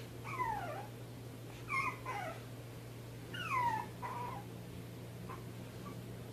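Small puppy whimpering and yelping: high cries that slide down in pitch, in three short bursts over about four seconds, over a steady low hum.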